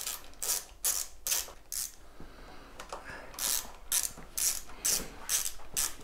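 Ratchet tool worked in short back-and-forth strokes, about two a second, tightening a bolt at the handlebars while the e-bike is being assembled. There is a short pause about two seconds in.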